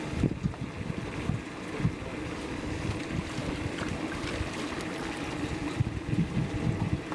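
Wind buffeting the microphone aboard a fishing boat: an uneven, gusty low rumble over a steady hiss.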